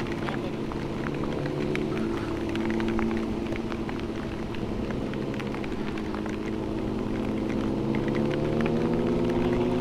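Motorcycle engine running at a steady pace while riding in rain, its pitch rising slowly near the end as it speeds up, with scattered ticks of raindrops hitting the camera.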